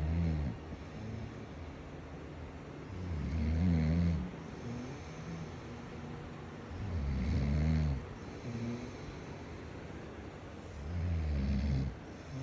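A person snoring in their sleep, a low snore about every four seconds: the tail of one at the very start, then three full snores.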